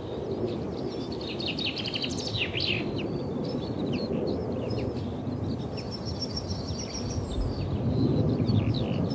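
Small songbirds chirping and singing, with a burst of quick chirps about two seconds in and a high trill around six seconds, over a steady low rumble.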